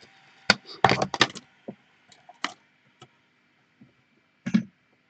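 A handful of short, sharp knocks and clicks of hard objects being handled and set down: a quick cluster about a second in, one near the middle and a loud single knock near the end.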